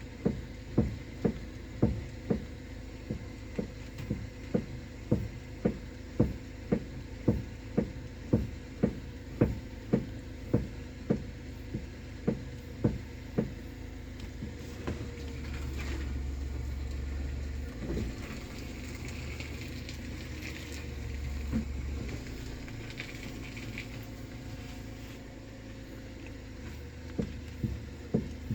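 Repeated sharp knocking from a worn steering gearbox, about two knocks a second, stopping about halfway through and returning near the end. It is the gearbox's abnormal noise, a sign of wear bad enough to keep the car from running straight and to fail inspection. A steady low hum fills the middle stretch and swells twice.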